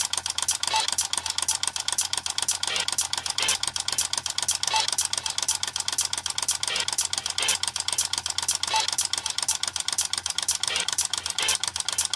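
Gakken flip clock's motor running and its number cards flipping over rapidly, a fast continuous clatter of many clicks a second over a low steady hum.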